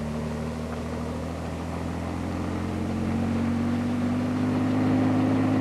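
Bell 47 helicopter hovering low, its piston engine and rotor making a steady drone that grows louder and rises slightly in pitch toward the end.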